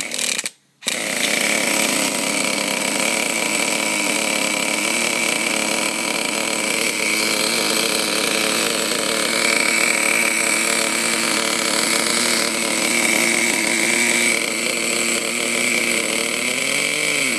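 Nitro RC engine running with a steady, high-pitched whine on its starter after a short first burst, its high-speed needle opened to about 3.5 turns out to get it to start. Near the end the pitch rises and falls briefly, then the sound cuts off suddenly.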